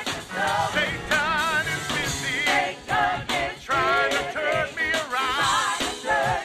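Gospel choir singing with a lead vocalist over band accompaniment; the held notes waver in a wide vibrato.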